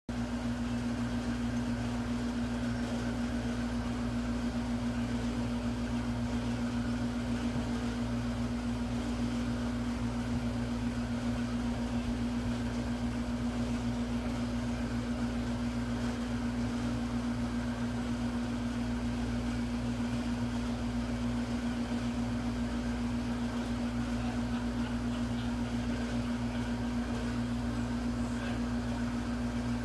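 A steady mechanical hum with one strong low tone, unchanging.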